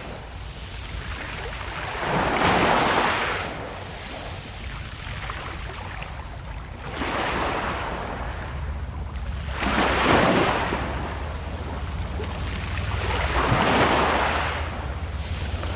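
Calm sea waves breaking and washing in, four swells of surf each a few seconds apart over a steady low rumble.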